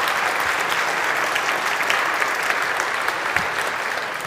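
A large audience applauding, many people clapping at once in a steady patter.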